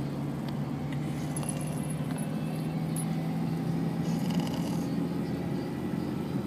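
French bulldog snoring in its sleep: a rasping snore on each breath, a few seconds apart, over a steady low drone.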